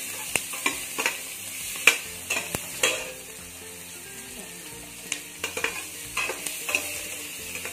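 Garlic and onion sizzling in hot oil and butter in a pan, with a spatula clicking and scraping against the pan as they are stirred. The stirring clicks come in clusters, with a couple of seconds of sizzling alone around the middle.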